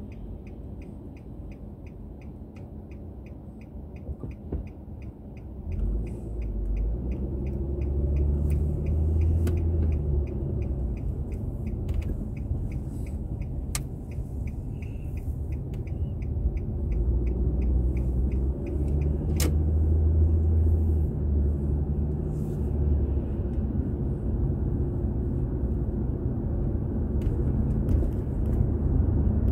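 A car's turn-signal indicator clicking at about two ticks a second over the low rumble of the engine and road noise inside the cabin. About six seconds in the car pulls away and the rumble grows louder, and the clicking stops about halfway through.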